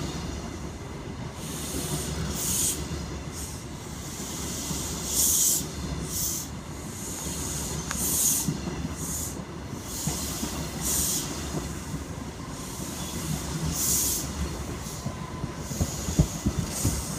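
Train running past close by: a steady low rumble of wheels on the rails, with short high-pitched squeals every second or two.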